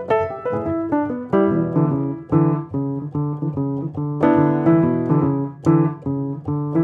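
Background piano music, notes played in an even rhythm.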